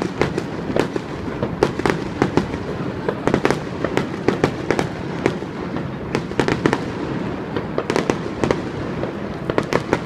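Aerial fireworks shells bursting in a rapid, irregular string of bangs and pops, several a second, over a continuous background noise.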